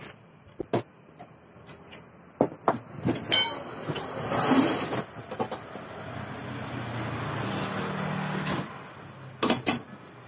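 Steel tube and tools being handled: scattered knocks and clanks of metal, one of them ringing a little past three seconds, and a short hiss around four and a half seconds. In the second half a low steady motor drone runs for a couple of seconds and fades out.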